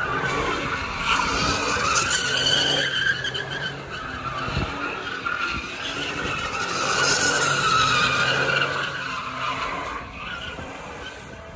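Tires of a Chevrolet Silverado pickup squealing continuously as it spins donuts, with the engine running hard underneath. The squeal wavers in pitch and grows quieter near the end.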